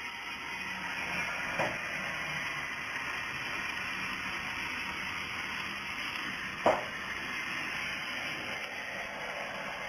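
12 kW fiber laser cutting machine cutting carbon steel plate: a steady hiss from the cutting head, broken twice by a short sharp pop, about one and a half seconds in and again, louder, near the seven-second mark.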